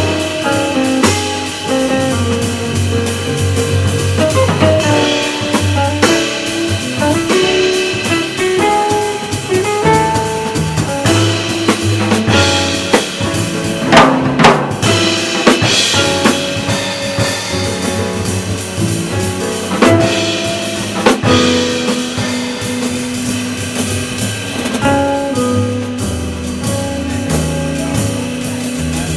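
Live jazz quartet playing: hollow-body electric guitar, piano, upright bass and drum kit, with busy cymbal work. It has a couple of loud drum accents about halfway through.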